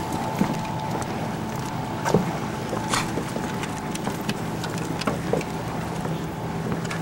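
Motorboat engine droning steadily out on the lake over a noisy wash of wind and water, with a few light knocks about two, three and five seconds in.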